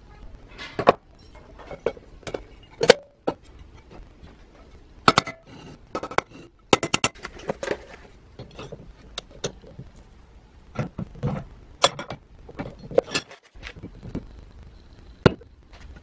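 Irregular sharp clinks and knocks of small metal parts and tools being handled on a workbench while a cast-iron coffee grinder is put back together.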